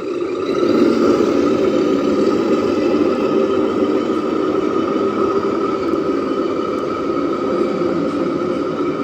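1/14 scale RC truck running with a steady engine sound.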